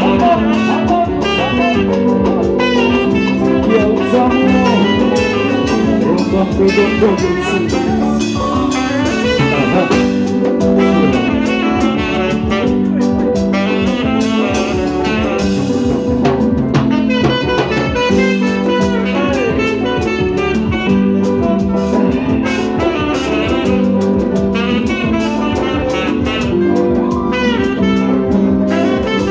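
Live band playing an instrumental passage, with saxophones leading over electric guitar, keyboard and drums.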